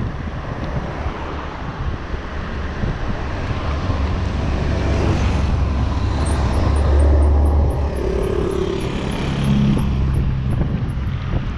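Wind rushing over the microphone and road noise from a 20-inch folding e-bike being ridden, with a motor vehicle's engine hum swelling in the second half.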